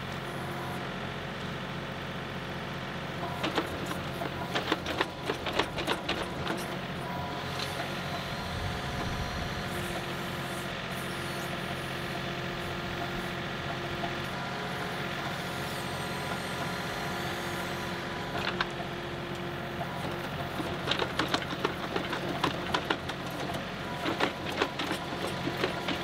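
John Deere 2038R compact tractor's three-cylinder diesel engine running steadily while its backhoe digs. Clusters of clanks and knocks come a few seconds in and again near the end, and a whine comes and goes.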